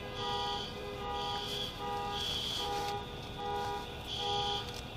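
Electronic alarm sounding a repeating pattern of fixed high and low tones, about once a second.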